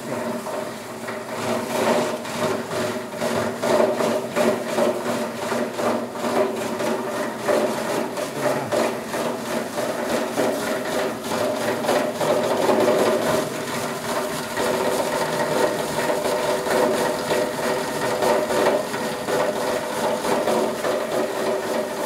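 Small electric plastic shredder running, its blades chopping waste plastic packets into flakes of 2 to 4 mm: a steady motor hum under a fast, continuous rattle of cutting.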